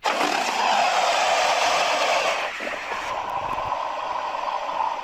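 Movie creature sound effect: a long, harsh, hissing screech that starts abruptly and eases a little after about two and a half seconds.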